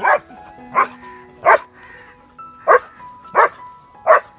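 German Shepherd barking about six times in a steady series, roughly one bark every 0.7 seconds with a short pause midway: warning barks at approaching cattle, guarding its owner. Background music plays underneath.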